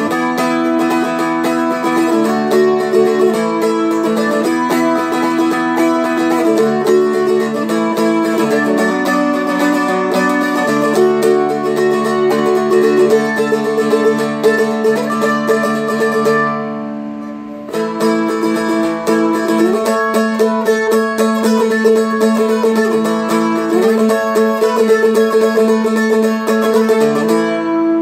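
Seagull Merlin M4 four-string played with a pick, a picked melody over a steady ringing drone note. The playing stops briefly about two-thirds of the way through, then starts again.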